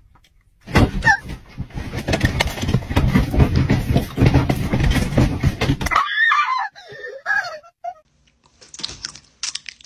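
A woman screaming loudly in long, harsh cries, from about a second in until about six seconds in, then a few shorter wavering cries that rise and fall in pitch.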